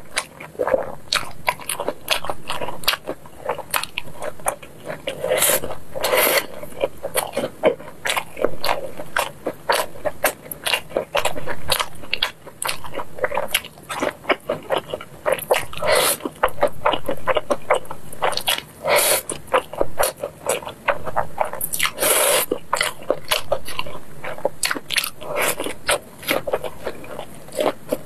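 Close-miked eating of sauced fried chicken and spicy fire noodles: continual wet chewing, mouth clicks and bites, with noodles slurped in. Several louder bursts stand out among the rapid clicks.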